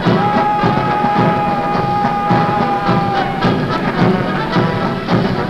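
Military brass band playing a march with drums keeping a steady beat; one high note is held for about three seconds near the start.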